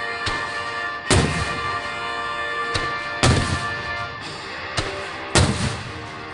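Aerial fireworks shells bursting in a series of booms, three heavy ones about two seconds apart with lighter bangs between, over steady background music.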